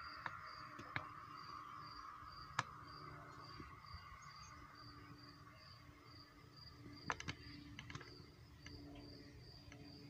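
Faint, steady chirping of an insect such as a cricket, a high pulse repeating about three times a second, with a few sharp clicks, the loudest about two and a half seconds in and a quick cluster near seven seconds.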